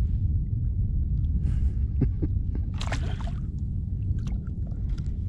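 Water sloshing and lapping against a kayak's hull over a steady low wind rumble on the microphone, with two short splashes about one and a half and three seconds in.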